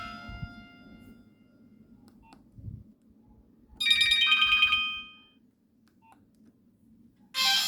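Nokia 1661 mobile phone ringtones: the last notes of one tone fade out, a short melodic ringtone plays for about a second around the middle, and another ringtone starts near the end. Faint clicks sound in the quiet gaps between them.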